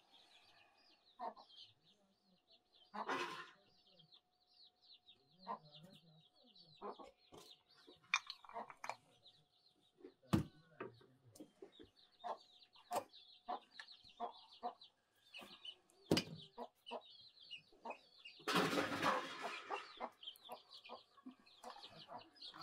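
Chickens clucking over constant high-pitched chirping, with scattered clinks of a metal ladle against aluminium pots. A louder scrape comes about three-quarters of the way through.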